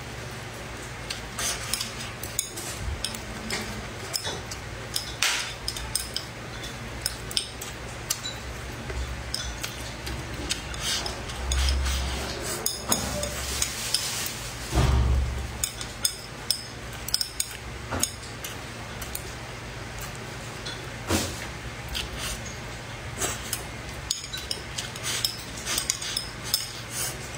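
Eating at close range: chopsticks clicking and scraping on a ceramic plate, with chewing of rice and braised fish, many short sharp clicks throughout. A couple of dull low bumps come about halfway through.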